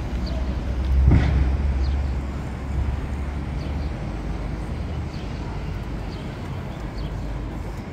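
City street traffic: a steady low rumble that swells about a second in as a vehicle passes, then eases off.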